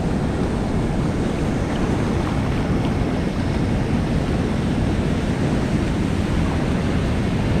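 Steady rush of water pouring through a concrete spillway's gates, mixed with wind buffeting the microphone; an even, unbroken noise that is heaviest in the low end.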